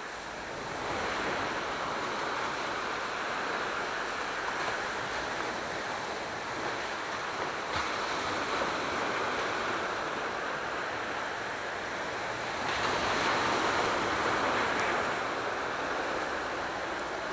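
Sea waves washing onto the shore in a steady rushing surf that swells louder about a second in and again near the end.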